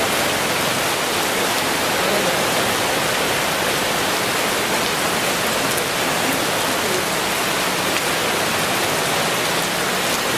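Heavy rain falling steadily, an even hiss of downpour that does not let up.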